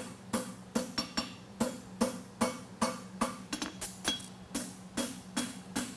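Farrier's hammer striking a hot steel concave horseshoe on the anvil horn in an even rhythm, about two and a half blows a second, each with a short metallic ring, as the branch is bent around the horn.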